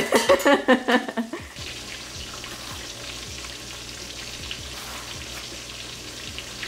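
A voice for the first second and a half, then fish frying in hot vegetable oil: a steady sizzle with scattered small pops and crackles.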